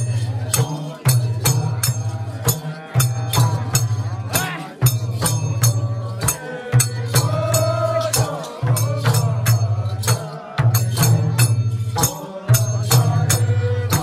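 Nepali folk dance music: a drum beating a repeating low rhythm under sharp jingling percussion strikes, with a wavering melody above.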